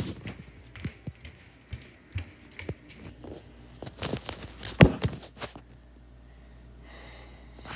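Handling noise of a handheld phone being carried while walking: footsteps, rubbing and scattered clicks, with one sharp knock about five seconds in.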